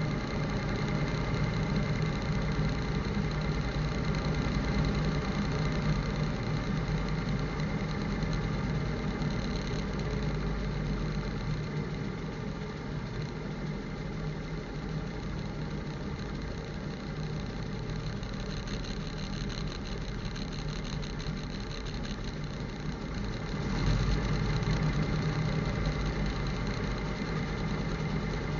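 1952 REO M35 deuce-and-a-half's engine running steadily at idle. It drops slightly in level through the middle and comes up again a little after twenty seconds in.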